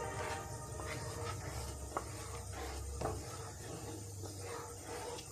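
Wooden spatula stirring and scraping thickening milk around a non-stick pan, with two sharper knocks about two and three seconds in, over a steady low rumble.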